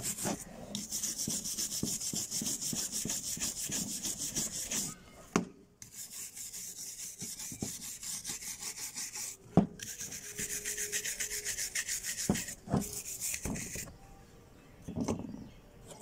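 A flat wooden stick scraping caked dried soil and rust off the metal frame of a buried, corroded revolver, in rapid rhythmic strokes. The scraping comes in bouts broken by a few sharp knocks, and eases off near the end.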